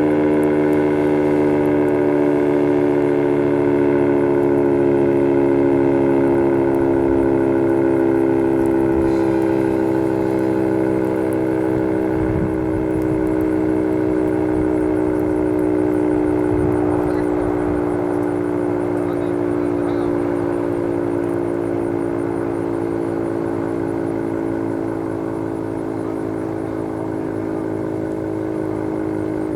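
Federal Signal 3T22 three-tone rotating warning siren in a long, slow wind-down: its chord of steady tones slides gradually lower in pitch and slowly fades.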